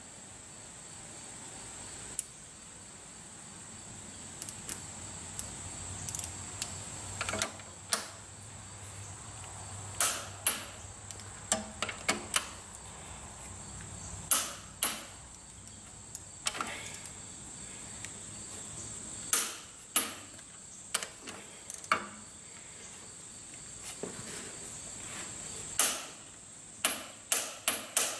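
Irregular sharp metallic clicks and clinks of a socket wrench on the connecting-rod bolts of a Cummins 8.3L diesel, as the bolts are turned the final 90 degrees of a torque-turn procedure.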